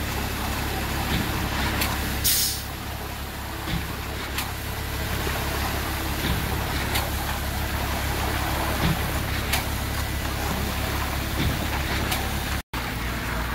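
Concrete boom pump truck running steadily while it pumps concrete out through its boom hose, with a light knock about every two and a half seconds and a short hiss of air about two seconds in.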